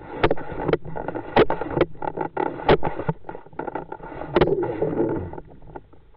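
Muffled rushing-water noise picked up by an underwater camera being pulled through the water on a fishing line, with frequent irregular clicks and knocks. The sound dips briefly near the end.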